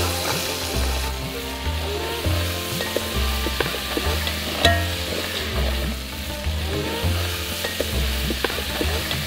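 Crab pieces being stirred and turned in an aluminium pot with a spatula, over a steady sizzle, with scattered scrapes and knocks of the spatula against the pot.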